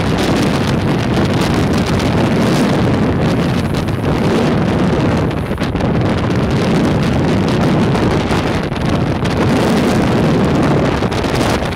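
Strong wind blowing steadily across the microphone aboard a Dragonfly trimaran under sail, over the rush of choppy water past the hulls.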